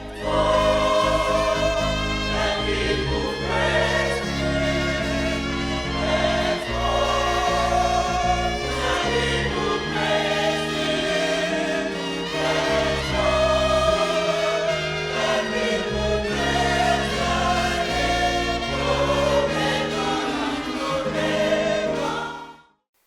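Gospel choir singing over instrumental backing with a steady bass line; the music stops abruptly shortly before the end.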